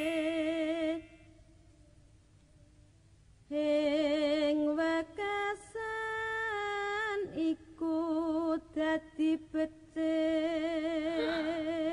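A lone woman's voice singing a slow, unaccompanied melody, holding long notes with a strong wavering vibrato. It stops after about a second and comes back about three and a half seconds in, moving between held notes and shorter broken ones.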